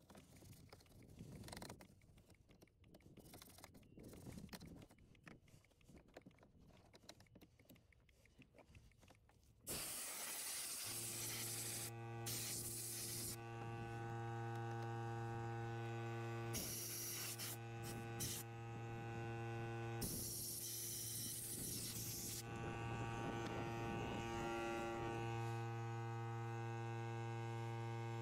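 Faint rubbing of a detailing brush and cloth on dashboard plastic. About ten seconds in, a steady electric hum of several even tones starts suddenly and carries on, with stretches of hiss over it now and then.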